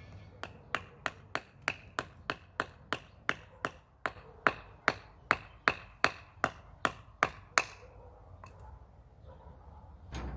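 A knife being batoned down into a small stick of wood: about twenty sharp knocks, roughly three a second, each with a short ring, stopping about three-quarters of the way through.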